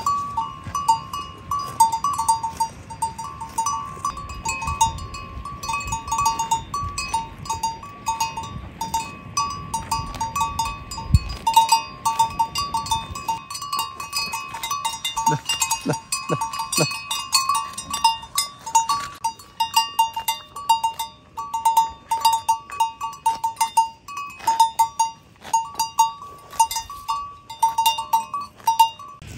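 Metal cowbell on a grazing cow's neck clanking irregularly as the cow moves its head, several strikes a second.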